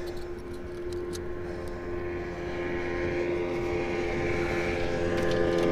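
Engine of a passing motorboat: a steady drone, unchanging in pitch, growing louder as it approaches.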